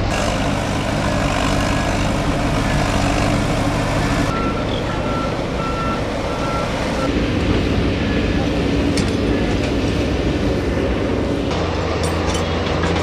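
Heavy diesel earth-moving machinery running steadily: a bulldozer, a padfoot compactor roller and an excavator in turn, the engine sound changing abruptly three times. A run of short steady beeps sounds in the middle.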